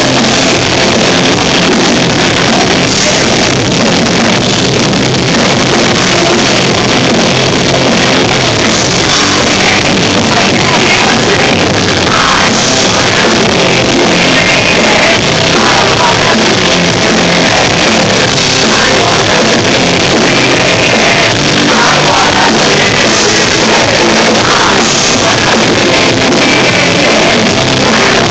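Live horror-punk rock band playing loud, with distorted electric guitars, drum kit and some singing, recorded on a phone so the sound is heavily distorted and muddy.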